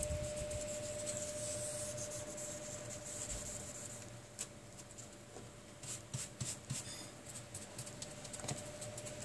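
Soft cloth rubbing over the glass of a bare tablet display panel as smudges are wiped off, with scattered light clicks and taps in the second half. A faint steady whine runs underneath.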